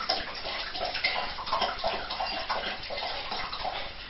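Sulphite rinse solution poured from a narrow-necked swing-top glass bottle into a plastic jug, running and splashing in uneven pulses.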